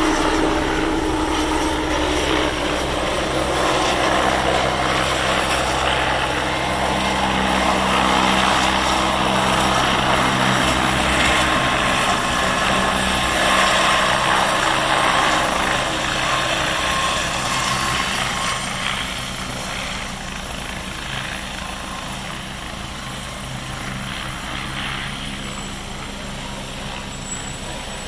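Westland Wasp helicopter's turbine and rotor running as it flies in low and comes down to land on grass; the sound is loud and steady, easing off somewhat in the second half as the helicopter settles.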